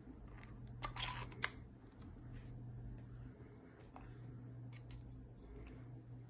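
Light clicks and rattling of 3D-printed plastic gear parts being handled and fitted together, loudest in a short cluster of clicks about a second in, with a few lighter clicks near the end. A faint steady low hum runs underneath.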